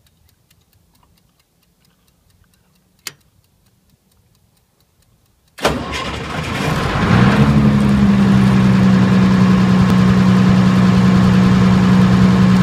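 Faint ticking of a wind-up kitchen timer and a single click about three seconds in. A little over halfway through, a diesel generator starts abruptly and within about two seconds settles into a loud, steady run with a low hum.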